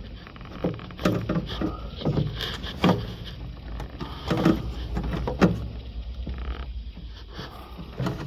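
Irregular knocks, clicks and rustling of hands moving plastic corrugated wiring conduit and working among parts in a car's engine bay, over a steady low hum.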